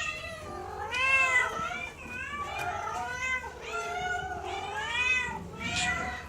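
Several shelter cats meowing, their calls overlapping at different pitches one after another.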